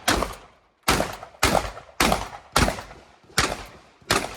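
Shotgun fired in rapid succession: seven shots, about two a second, with a slightly longer pause before the last two, each followed by a short echo.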